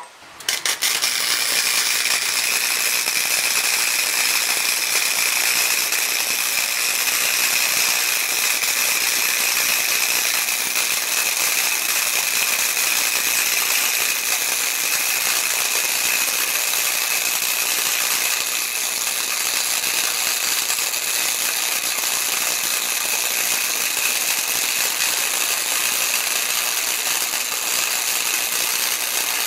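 Electric arc welder laying a bead around a steel exhaust flange on a catalytic converter pipe: a steady, crackling sizzle of the arc that starts about half a second in and holds without a break.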